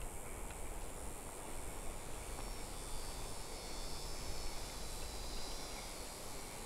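Steady outdoor background: a low rumble with a faint high buzzing of insects that grows a little stronger a few seconds in.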